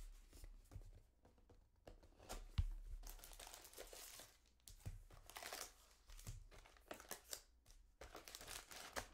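Faint crinkling, rustling and tearing of a trading-card hobby box and its foil card packs being opened and handled, with one soft thump about two and a half seconds in.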